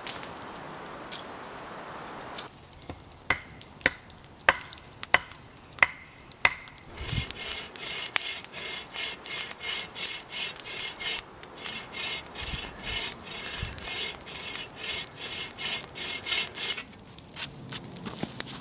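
A run of sharp wooden knocks, then a hand saw cutting through a dry dead branch in steady back-and-forth strokes, about two a second, for some ten seconds before it stops.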